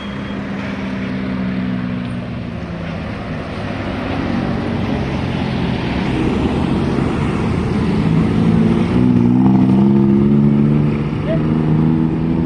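Tour bus sounding a Basuri 'telolet' musical horn: held horn notes stepping from pitch to pitch in a tune, over traffic noise. It grows louder toward the second half.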